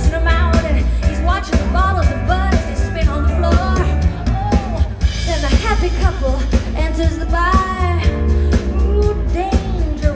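Live pop-rock band playing a song: a sung lead vocal melody over a steady bass line and regular drum beats.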